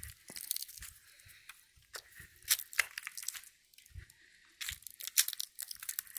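Footsteps crunching through dry fallen leaves, an irregular crackling that is loudest about halfway through and again near the end.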